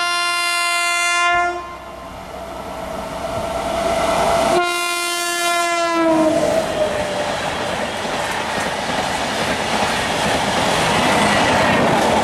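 WAP-7 electric locomotive sounding its horn in two blasts, the second dropping in pitch as the locomotive passes. Then the passenger coaches rush past with a rising clatter of wheels on rail joints.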